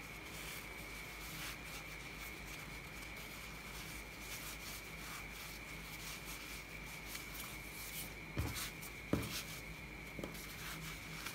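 Soft rustling and rubbing of a necktie's fabric as hands fold it and pull it through the knot, with two short knocks about eight and nine seconds in and a faint steady high hum behind.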